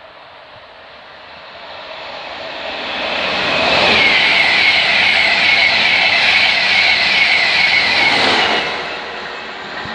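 A train passing close by on the East Coast Main Line: the rumble builds over a few seconds, holds loud with a high whine for about four seconds, then falls away near the end.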